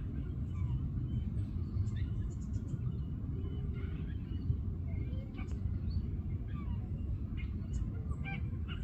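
Waterbirds at a lake calling in short, scattered honks and chirps over a steady low rumble.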